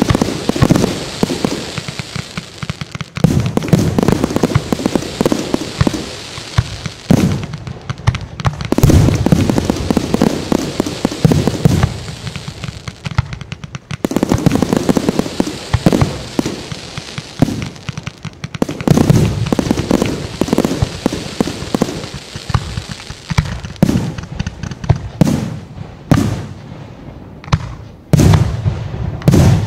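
Aerial firework shells bursting one after another, deep booms mixed with sharp cracks and crackling, in loose volleys with a brief lull midway and a dense run of bangs near the end.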